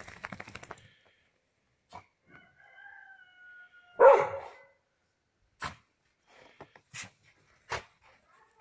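Standard schnauzer barking once, loud, about four seconds in. Quick crackly rustling at the start and a few short sharp sounds in the second half come from the dog moving in the snow.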